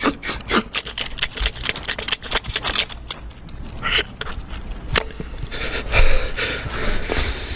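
Beatboxed mouth sounds imitating a needle scratching and picking at dalgona honeycomb candy: rapid, uneven clicks and scrapes, several a second, which thin out partway through. A steady hiss comes in near the end.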